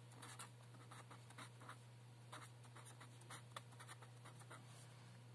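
Felt-tip marker pen writing a word, a run of faint short strokes, over a steady low hum.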